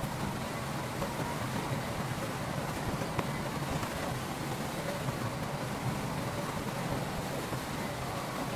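Diesel engine of heavy earthmoving equipment running steadily, with a faint click about three seconds in.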